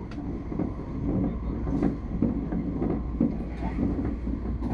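Tobu 60000 series electric train running at speed, heard from inside the leading car: a steady rumble of wheels on rail over a constant low hum, with a few sharp clicks.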